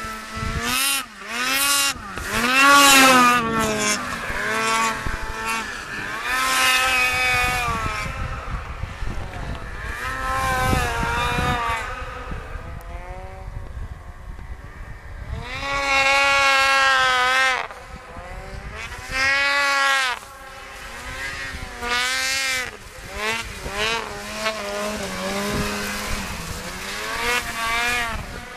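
Snowmobile engine revving up and down over and over, its pitch rising and falling as the machine accelerates and eases off. It swells loudest a few seconds in and twice just past the middle.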